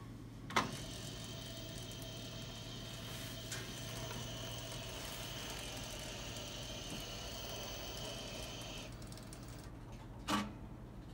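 Belt conveyor of an inline automatic optical inspection machine running with a steady whine for about eight seconds as it carries a relay-and-fuse box assembly, then stopping. A sharp clack about half a second in, as the assembly is set on the rails, and another sharp clack near the end, over a constant low hum.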